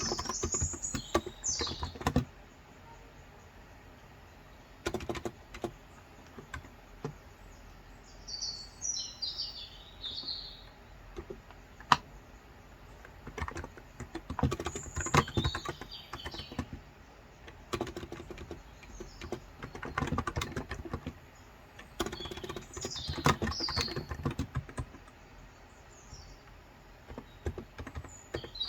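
Typing in bursts with short pauses on a Cox Endeavor electro-capacitive (Topre-style) tenkeyless keyboard with 35 g switches, its keys giving soft muted clacks, with one sharper louder key strike near the middle. Small birds chirp in short high phrases throughout.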